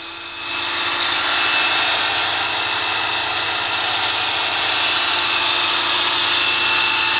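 DeWalt DW718 compound miter saw motor spinning up in the first half second, then running steadily with a whine. It runs with what the owner calls a knocking noise, which he thinks may be a loose drive belt needing adjustment.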